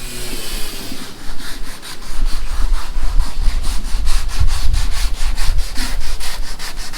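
Quick, even back-and-forth scraping strokes of a hand tool worked over a surface, about five strokes a second, starting about a second in.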